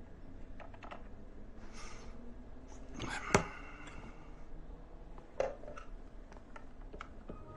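Scattered clicks and light knocks of a computer keyboard and objects handled on an office desk, with a sharp louder click a little over three seconds in and another knock about five and a half seconds in.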